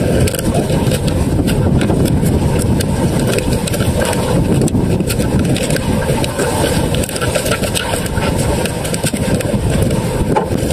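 Strong wind buffeting the microphone over a choppy sea from a small outrigger boat: a loud, steady rush broken by many quick crackles, with the sea washing around the hull.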